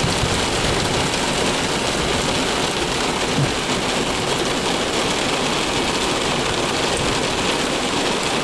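Very heavy rain falling on a car roof, heard from inside the car as a steady, even noise.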